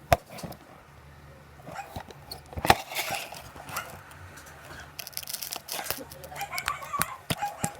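Homemade slime being squished and pulled by hand, giving sharp clicking pops and short crackling, tearing bursts, most of them in the second half.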